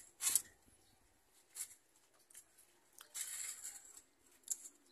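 A few short, crisp snaps and rustles as ripe grapes are plucked off the bunch and chewed. The loudest comes just after the start, with a longer hiss about three seconds in.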